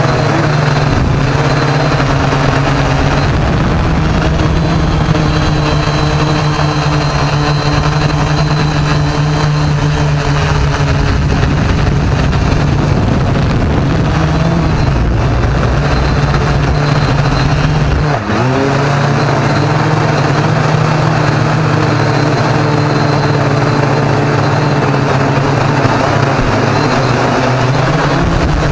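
Quadcopter drone's electric motors and propellers running steadily, heard from the onboard camera, with a brief dip and recovery in pitch about two-thirds of the way through.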